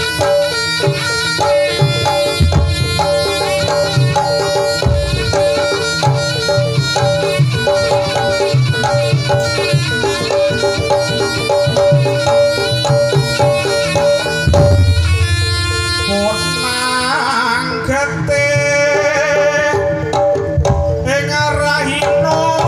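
Live East Javanese jaranan accompaniment: hand drums beating a busy rhythm under a reedy wind instrument holding a steady note. In the last few seconds there are sliding notes that bend up and down.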